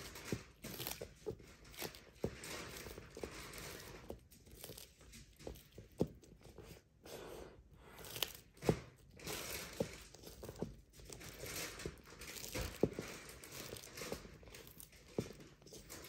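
Sulcata tortoise eating, biting and tearing at its food with irregular clicks and crunches, a few sharper snaps standing out.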